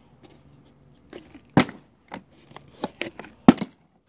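Partly filled plastic water bottle being handled close to the microphone: a string of sharp crinkles and knocks, the two loudest about one and a half and three and a half seconds in.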